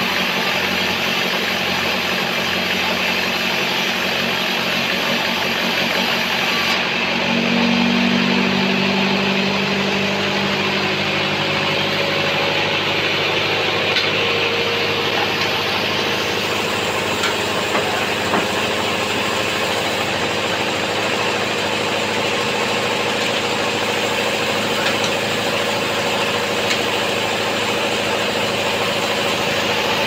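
Sawmill bandsaw running steadily, sawing a sengon (albasia) log: a continuous machine drone whose tone changes about seven seconds in.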